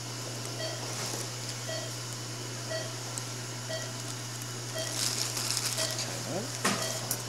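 Operating-room patient monitor beeping about once a second, the pulse-tone beep of a pulse oximeter, over a steady low hum. Faint rustling and clicks from handling the instruments come in about five seconds in.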